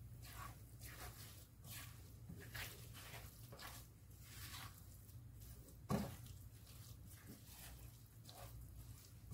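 Silicone spatula stirring a wet mixture of desiccated coconut, sugar and milk in a nonstick pan: soft, repeated scraping and squishing strokes, one or two a second. One sharper knock about six seconds in, over a faint steady low hum.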